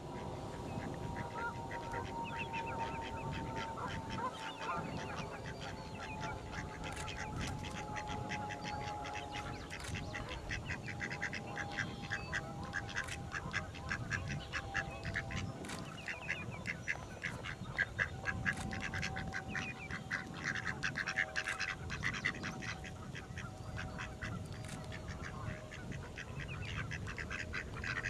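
A large flock of ducks and geese calling continuously, many short calls overlapping in a dense chatter. Underneath runs a steady tone that slides slowly down in pitch.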